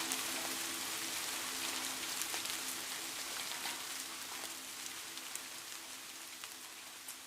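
Steady rain with scattered individual drops ticking, over a low held tone that dies away about five seconds in; the whole sound gradually fades down.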